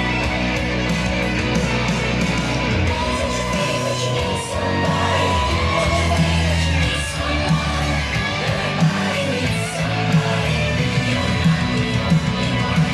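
Rock music with electric guitar and singing, played loud with heavy bass through a Genius SW-HF 5.1 5005 home theatre speaker system with subwoofer, heard in the room.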